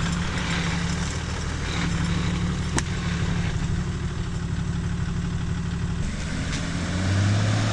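Four-wheel-drive engine idling steadily, then picking up revs and getting louder near the end. A single sharp click sounds partway through.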